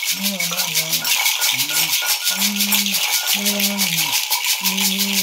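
Gourd rattles, one with a bead net, shaken in a steady, fast rhythm with jingling metal bells, under a man's chant in long held notes.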